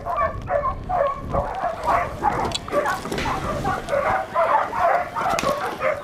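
Border collie sheepdog whining and yipping in a rapid run of short calls, several a second.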